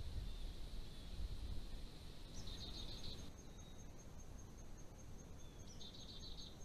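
Insects calling outdoors: a steady high trill with two short pulsed chirping phrases about three seconds apart, faint, over low rumbling noise in the first couple of seconds.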